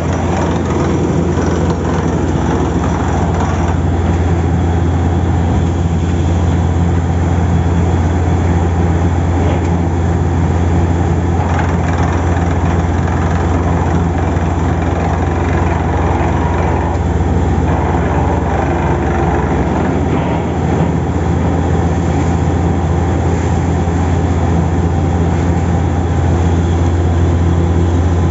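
Borewell drilling rig running steadily while drilling, a loud, even machine drone with a strong low hum and no pauses.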